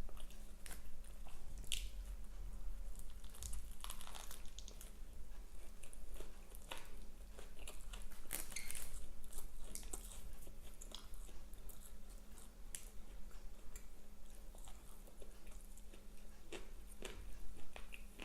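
A person biting into and chewing a Burger King Whopper Jr. burger close to the microphone: irregular wet smacks and small crunches throughout.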